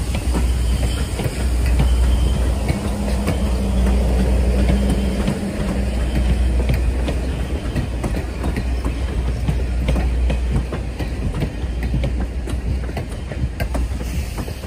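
Train of passenger coaches rolling past close by, with a steady low rumble and wheels clicking over the rail joints.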